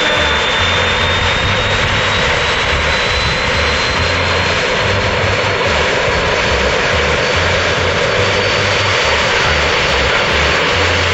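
Turbine aircraft engine running steadily, a loud rush with a thin high whine that rises slowly in pitch.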